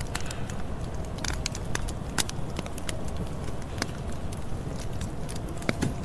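Campfire burning: a steady low rumble of the flames with frequent irregular sharp crackles and pops from the burning wood.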